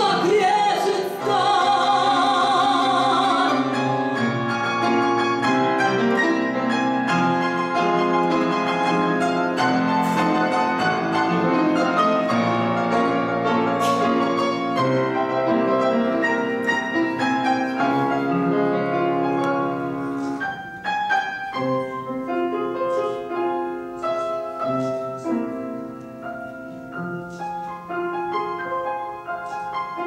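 A woman singing a long classical-style note with wide vibrato over a grand piano, the voice ending about three and a half seconds in. The grand piano then plays on alone, softer from about twenty seconds in.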